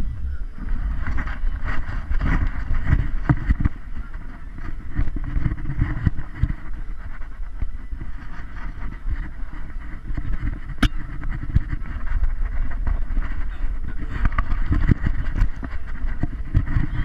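Wind and handling noise on a GoPro camera mounted on a walking dog's harness: low buffeting with irregular knocks and rubbing of the mount, and one sharp click about eleven seconds in.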